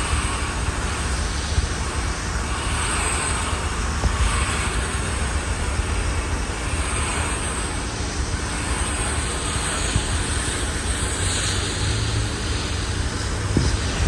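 Garden-hose spray nozzle spraying water steadily onto an air-conditioner condenser's coil fins, rinsing off coil cleaner, with a steady low rumble underneath.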